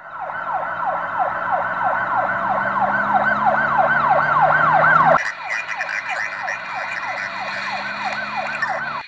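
Emergency vehicle siren in a fast yelp, each note sweeping up and dropping about three times a second. About five seconds in it cuts abruptly to a slightly quieter stretch of the same yelp.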